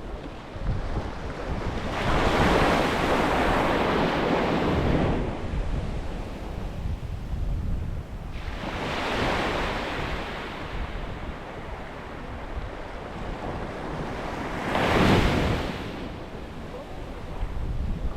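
Sea waves breaking on a beach: three surges of surf, each swelling and falling away, the last one short and sharp.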